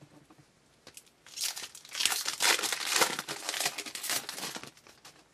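Crinkling and tearing of a foil trading-card pack wrapper being torn open and handled, running from about a second in until near the end.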